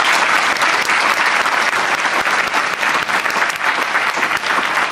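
Audience applauding: loud, dense clapping from a large crowd.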